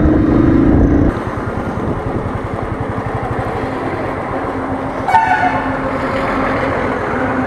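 Royal Enfield Thunderbird's single-cylinder engine running loud as the bike sets off, dropping about a second in to steadier engine and road noise while riding. A vehicle horn sounds briefly about five seconds in.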